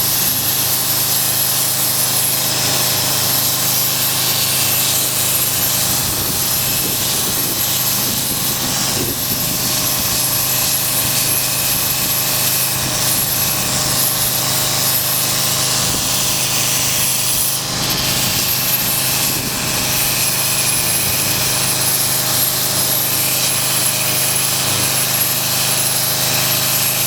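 Grinder running steadily with a constant whine, grinding vinyl concrete patch in driveway cracks down flush with the surrounding concrete; it eases briefly a little past halfway.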